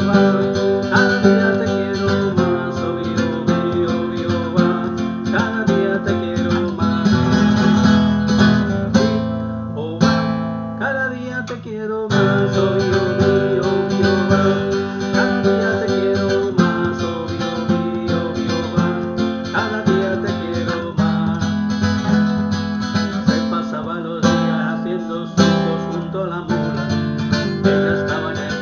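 Acoustic guitar strummed in a driving rumba flamenca rhythm, with a brief break about ten seconds in before the strumming picks up again.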